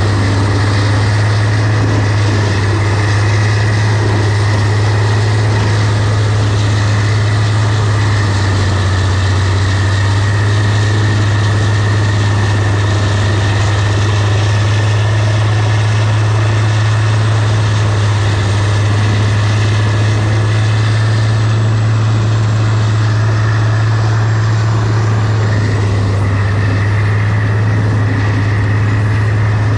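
Heavy truck engine running steadily, a loud, even low drone.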